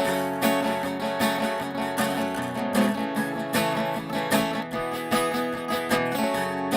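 Acoustic guitar strummed in a steady rhythm, playing an instrumental passage of a folk song with no singing.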